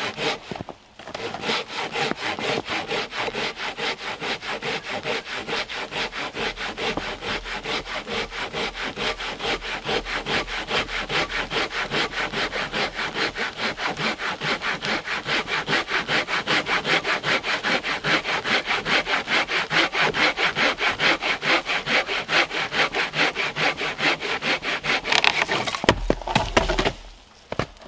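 Hand sawing through a dead standing trunk with a Silky BigBoy folding pull saw, at a steady rhythm of about three strokes a second. The strokes stop near the end, with a louder crack and low thump as the sawn-through section breaks off.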